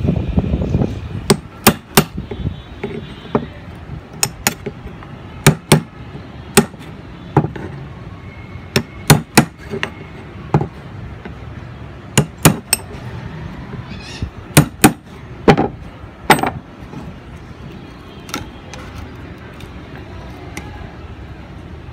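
A hammer strikes a metal chisel to knock out the bamboo wall between a row of drilled holes. The sharp knocks come singly or in quick pairs and threes, about one a second, and stop about two-thirds of the way through.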